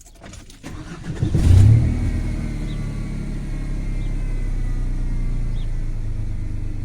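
1995 Ford F-150 engine cranking over and catching about a second and a half in with a brief rev, then settling into a steady idle. It is starting on a newly replaced starter solenoid after the old one failed.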